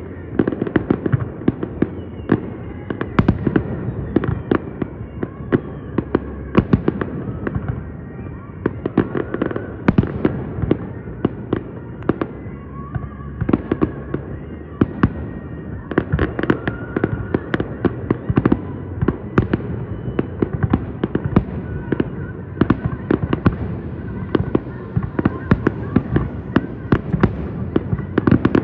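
Fireworks grand finale: a rapid, continuous barrage of sharp bangs and crackles, several a second, with faint whistles gliding in pitch between them.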